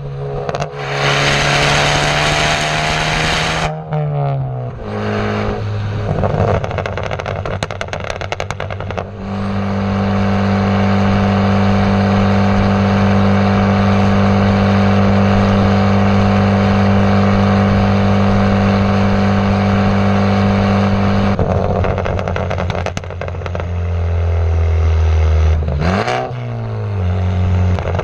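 Straight-piped exhaust of a turbocharged Ford Focus ST (catless downpipe, mufflers and resonator deleted) while driving. A loud rush of hiss comes about a second in and short crackles follow as the revs change. Then comes a long steady drone at constant revs, and near the end the revs climb and fall again.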